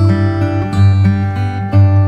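Background music: strummed acoustic guitar chords, with chord changes about a second apart.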